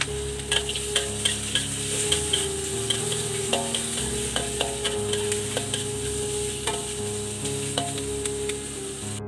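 Pork belly, ginger and garlic sizzling in oil in a wok while a spatula stirs them, scraping and tapping the pan in quick strokes for the first few seconds and then more sparsely. Soft background music plays underneath.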